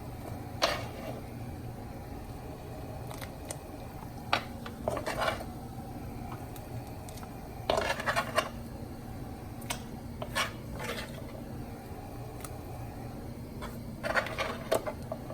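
Scattered knocks and clatters of kitchenware as sliced onions and lemons are put into a pot of boiling water, over a steady low background hum.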